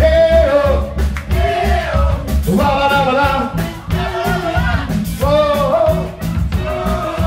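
Live pop-rock band playing, with singing over a steady beat.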